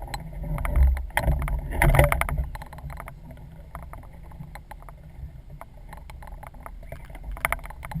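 Sounds aboard a small fishing boat on the water: a steady low rumble with scattered knocks and clatter, busiest in the first two and a half seconds and quieter after.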